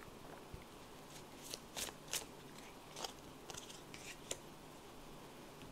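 Faint, crisp clicks and rustles of tarot cards being handled and laid down: a scattered string of short strokes, the loudest about two seconds in.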